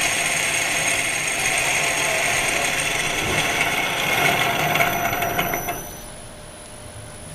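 50 mm face mill cutting metal on a milling machine: a steady cutting noise carrying high whines. About six seconds in the cut ends and the sound drops to the quieter running of the machine.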